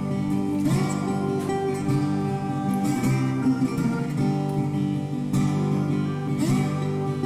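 Background music played on acoustic guitar, plucked and strummed with a steady beat.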